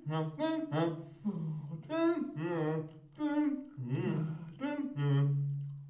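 Voices vocalizing wordless sung syllables and hums in short, quick phrases, as in a contemporary vocal performance piece. About five seconds in, one long low hum is held and fades away.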